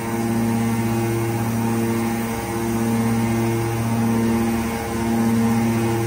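Hydraulic power pack of a Y81-250R scrap metal baler (electric motor and pump) running with a steady hum under load, while the control valve is held in the back position to retract the side cylinder. The hum swells and dips slightly a few times.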